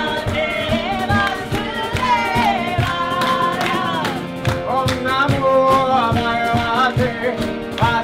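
Kirtan music: acoustic guitar and harmonium with a steady percussion beat, and voices singing a devotional chant.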